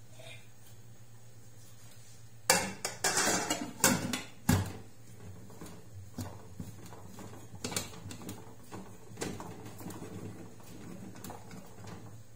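Stainless steel pressure cooker lid being set and fitted onto the pot, several sharp metal clanks about two and a half seconds in, followed by a few lighter knocks over a steady low hum.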